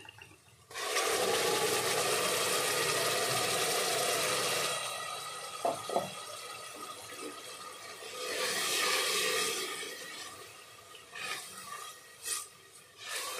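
Tomato, ginger, garlic and green chilli puree poured into hot oil and fried onions in a pressure cooker, sizzling loudly as it hits about a second in. The sizzle eases after a few seconds and swells again, and near the end a spatula stirs the masala and knocks against the pot a few times.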